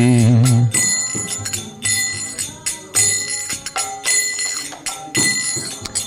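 A man's held sung note ends just under a second in. Then a pair of kartals (small brass hand cymbals) are struck in a steady rhythm, about once a second, ringing bright and high between strokes, keeping time between lines of a devotional chant.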